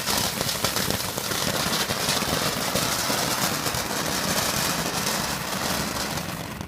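Ground firework fountain spraying sparks: a steady hiss with fine crackling that starts suddenly and dies away near the end.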